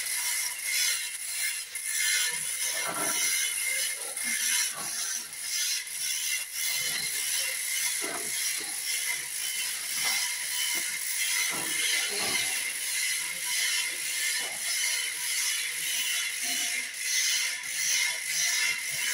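Irregular mechanical clicking and rattling over a steady high hiss of building-site noise.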